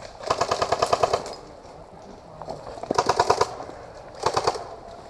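Airsoft gun firing on full auto in three bursts of rapid, evenly spaced shots: the first about a second long, then two shorter ones.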